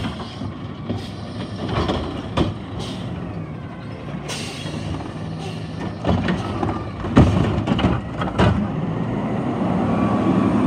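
Refuse truck with a Curotto-Can front-loading arm at work: the diesel engine runs steadily under hydraulic load while the arm dumps a cart and the hopper is lifted over the cab. Several loud metal clanks and bangs come from the arm and hopper, most of them in the second half, and the engine grows louder near the end.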